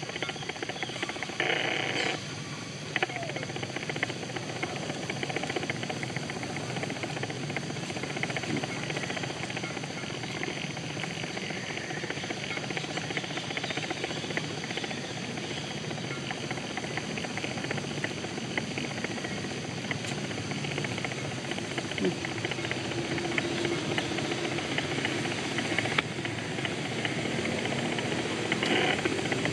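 Steady hissing outdoor ambience in a forest, with a few faint clicks.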